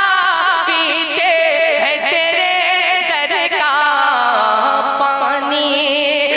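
A man singing a naat, drawing a wordless phrase out into long, ornamented notes that waver and glide in pitch.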